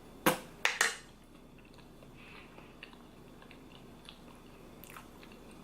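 A person eating close to the microphone: three sharp, loud mouth or bite sounds within the first second, then quiet chewing with small scattered clicks.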